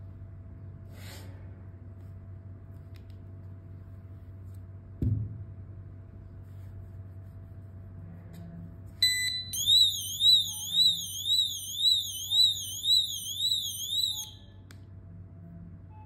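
Tuya WiFi door sensor's built-in alarm going off as its magnet is separated from the sensor body: a short beep, then a warbling siren sweeping up and down about twice a second for about five seconds before it cuts off. A single knock about five seconds in comes before it.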